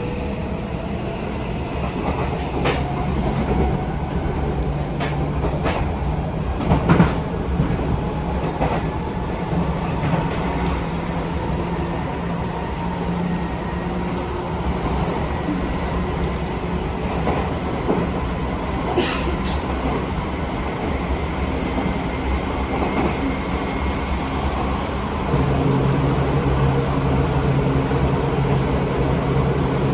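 Running sound inside a Seibu 20000 series electric train with a Hitachi IGBT-VVVF inverter. The inverter and traction motors give a rising whine that fades about a second in, over a steady rumble with the wheels clicking now and then over rail joints. A louder low hum sets in about 25 seconds in.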